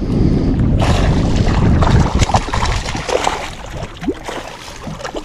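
Wind rumbling hard on the microphone, with a rushing, splashy water noise around the boat from about a second in, as a hooked northern pike is brought to the boat.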